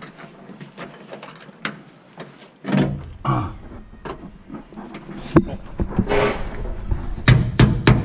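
Gloved hands working a sheet-metal piece into the rusty cab floor corner under the door pillar: scraping, clinking and handling knocks. A quick run of sharp metal knocks comes near the end.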